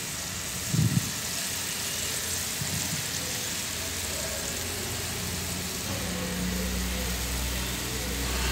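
Spiced masala gravy with dried red chillies bubbling and sizzling in a pan, a steady hiss, with a brief low thump about a second in.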